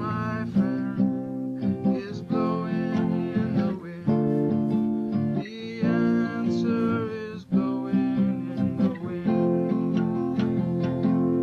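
A man singing to a strummed acoustic guitar, in a home recording; near the end the voice stops and a chord rings on.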